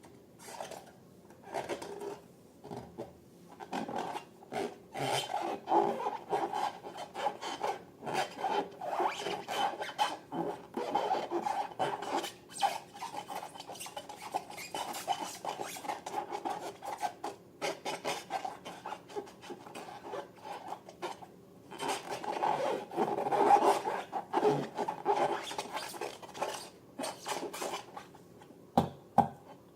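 Hands rubbing and working balloons and slime, a continuous run of irregular rasping, rubbing strokes, busiest and loudest a little past the middle.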